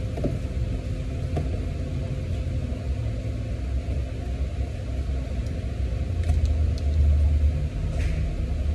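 Steady low rumble that swells about six to seven seconds in, with a few light clicks near the end.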